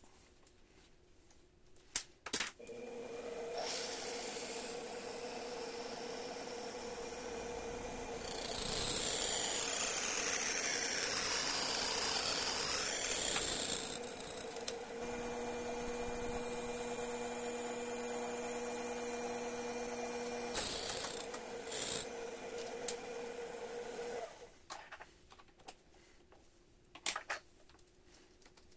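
A mini lathe's motor starts about two seconds in and runs steadily, spinning a wooden dowel as a drill bit in the tailstock chuck is fed into its centre. The running gets much louder twice as the bit cuts into the wood, with a wavering high whine during the first cut. The motor then runs on lightly and switches off a few seconds before the end.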